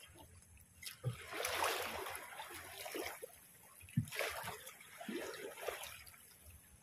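Water splashing and trickling in bursts from a net packed with small fish hauled up beside the boat, with two dull knocks about one and four seconds in.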